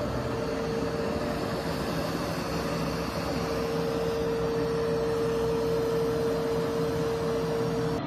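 Commercial wide-area walk-behind carpet vacuum running, its motor giving a steady hum with one held tone over a rush of air.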